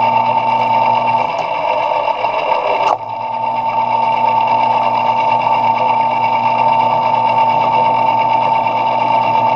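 Small metal lathe running steadily with a high-pitched whine, turning an aluminium part. The low hum fades for a couple of seconds, then a sharp click about three seconds in and the running sound carries on.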